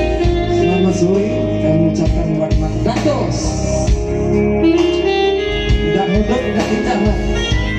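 Instrumental music led by guitar over a steady bass line.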